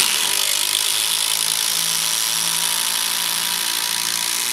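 HiKOKI WH36DC 36-volt cordless impact driver hammering a 100 mm, 14-gauge galvanized batten screw into timber: a loud, steady, rapid hammering with the motor running under load.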